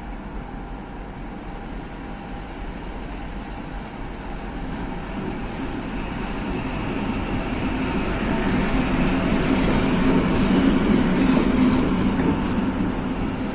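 PKP Cargo ST44 (M62-type) diesel locomotive with a two-stroke V12 engine rolling slowly past at close range. Its engine drone grows steadily louder through the first ten seconds and peaks near the end as the locomotive draws alongside.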